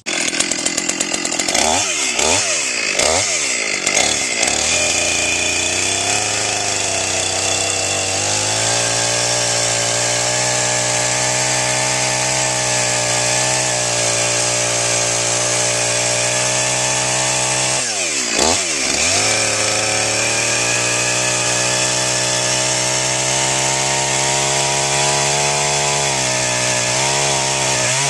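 Chainsaw revved in a few short blips, then held at high revs, sawing notches 3 inches deep across a log. The revs dip and recover once about two-thirds of the way through.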